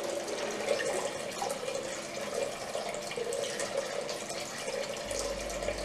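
Water trickling and splashing steadily as it spills from pot to pot into the bottom basin of a three-pot cascading garden fountain, its pump running.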